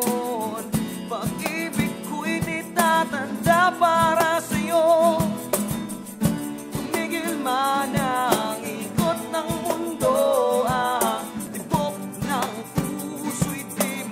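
A song: a man singing a melody with vibrato over an instrumental backing with a steady beat.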